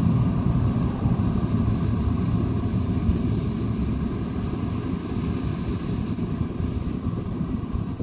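Steady low rumble of a combine harvester and tractor at work, with wind noise on the microphone.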